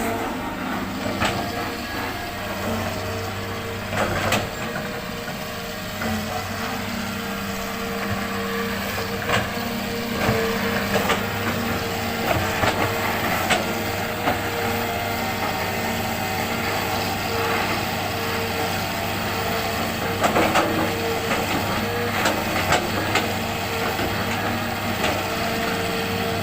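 Hitachi excavator's diesel engine running steadily while it loads sand, with irregular knocks and clanks from the working bucket and load throughout.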